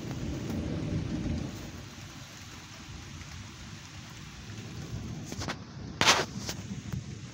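Thunder rumbling low, loudest in the first second and a half and then fading, over steady rain. A sharp knock about six seconds in, with a couple of fainter ones around it.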